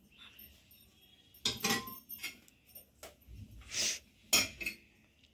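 A metal spoon scraping and clinking against a metal pressure cooker and a steel plate as cooked vegetable is dished out. There are a few sharp clinks about a second and a half in, and a scrape and clink near four seconds.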